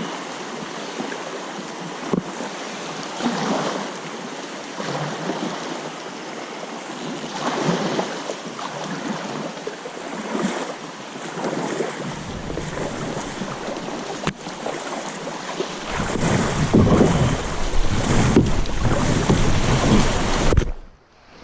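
Fast, high floodwater rushing and splashing around a kayak, swelling and easing every couple of seconds. Wind buffets the microphone, adding a deep rumble in the last few seconds before the sound cuts off suddenly.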